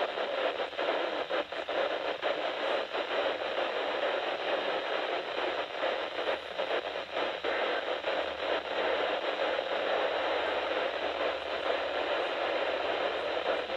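Radio static: a steady hiss with faint crackling from a radio receiver, with no voice on the channel.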